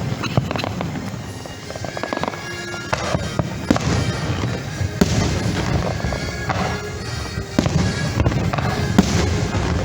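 Fireworks show: aerial shells bursting and crackling, many sharp pops and bangs over a low rumble, with show music heard from across the water.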